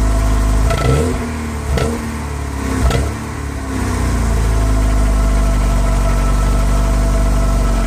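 Volkswagen Golf Mk2 GTI's 1.8-litre eight-valve four-cylinder engine, on its stock exhaust, blipped three times in quick succession in the first few seconds, then settling into a steady idle.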